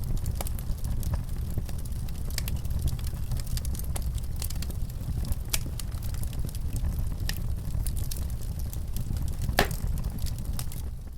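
Wood fire in a fireplace crackling, with scattered pops over a steady low rumble. One louder pop comes near the end.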